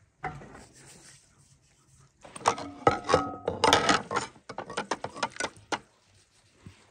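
Metal knives and utensils clinking and clattering against a metal pot, a quick run of knocks with short ringing notes lasting about three and a half seconds, starting about two seconds in.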